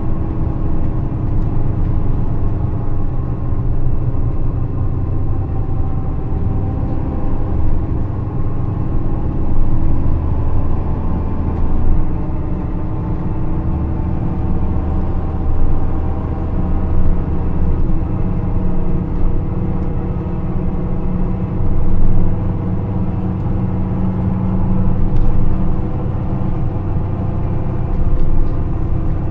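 Nissan Diesel FE6E six-cylinder diesel engine of a KC-RM211GSN mid-size city bus running under way, its engine note drifting up and down. The running noise is unusually loud, the mark of a bus known for abnormal noise.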